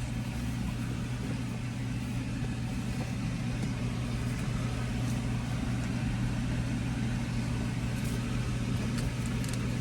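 Car engine running at a steady low hum, heard from inside the cabin.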